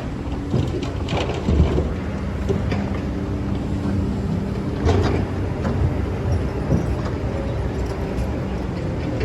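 Excavator's diesel engine running steadily under work, with a few short knocks and clanks. The loudest knock comes about five seconds in.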